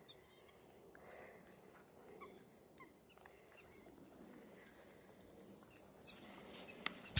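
Goldcrest calling faintly: a quick run of very high, thin notes, with a few lower bird chirps among them.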